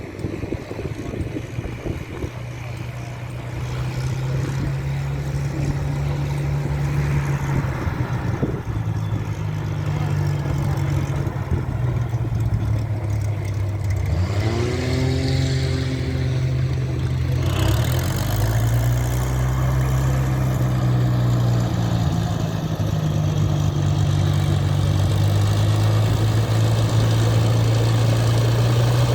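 Hawker Hurricane's Rolls-Royce Merlin V12 engine and propeller droning steadily, growing louder as the aircraft comes in. The pitch sweeps about halfway through, and the sound turns fuller and louder soon after.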